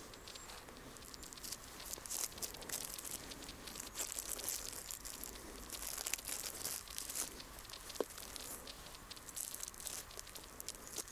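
Snow crunching and crackling in irregular clusters, with one short tone about eight seconds in.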